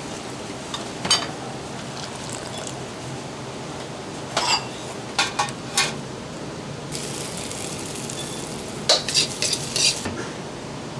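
Ladle and mesh noodle strainer clinking against bowls and pots in scattered clusters while noodle soup is being assembled, over a steady background noise; a hiss joins in for about three seconds from about seven seconds in.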